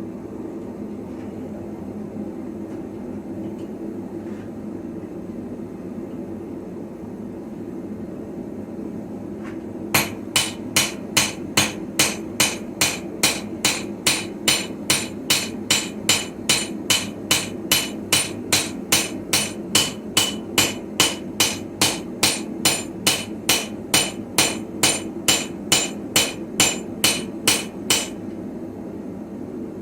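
A blacksmith's hammer strikes steel on an anvil in a steady rhythm, about two to three ringing blows a second, forging a sickle blade. The blows start about a third of the way in and stop shortly before the end, over a steady low hum.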